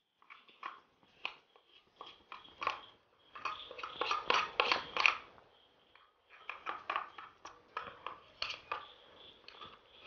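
Utensil scraping and clicking against a container as thick lunu miris paste is scooped into a ceramic bowl: a run of short clicks and scrapes, busiest around the middle, with a brief pause about six seconds in.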